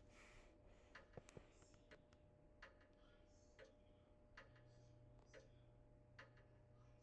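Near silence: room tone with faint sharp ticks about once a second and a faint low hum.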